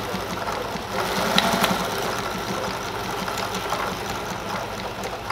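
A 1957 PFAFF 230 sewing machine running and stitching through fabric: a steady, rapid clatter of needle and mechanism, getting louder about a second in.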